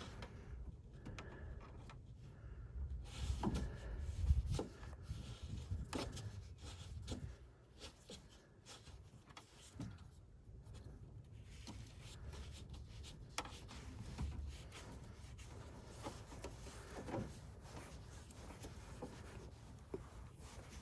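Faint handling sounds of hands working wires and connectors at a heat pump's run capacitor: scattered small clicks, taps and rubbing over a low rumble.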